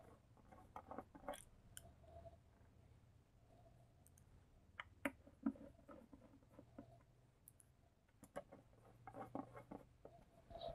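Faint, scattered clicks and light knocks of LED TV parts being handled and fitted back together, with a few sharper taps about five seconds in and a denser run of small clicks near the end.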